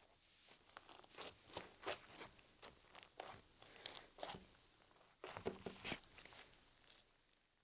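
Slime being squeezed and poked by hand, making faint, irregular small clicks and pops, with a denser run of louder pops a little past the middle before they thin out.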